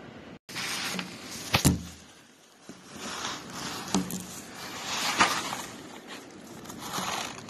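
Severe summer thunderstorm: wind and heavy rain surging in gusts, rising and falling every second or two, with sharp knocks about a second and a half in and again around four and five seconds in. The sound cuts out for an instant near the start.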